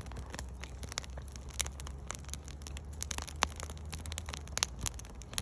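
Firewood burning in a campfire, crackling with irregular sharp pops and snaps over a low steady rumble.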